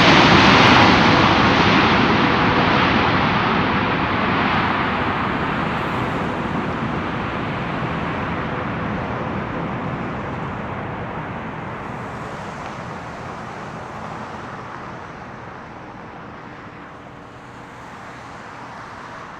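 Jet engine noise of a Boeing 787-8 Dreamliner after landing, loudest at first and fading steadily as the aircraft moves away down the runway, with a faint steady whine in it.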